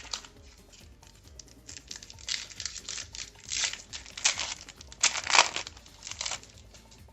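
Foil Yu-Gi-Oh booster pack wrapper crinkling and being torn open, in a series of crackly bursts that are loudest about five seconds in.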